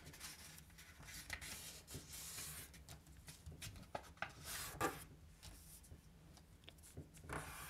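A sheet of A4 paper being folded over and its crease pressed flat: soft rustling and rubbing swishes with a few brief sharper scrapes.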